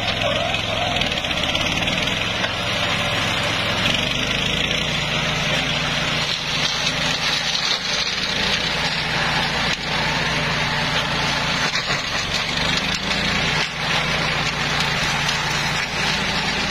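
Small engine of a walk-behind two-wheel tractor running steadily, driving a flail mower that shreds leafy branches and dry grass. There is a constant hum with a noisy rush of the chopping rotor over it.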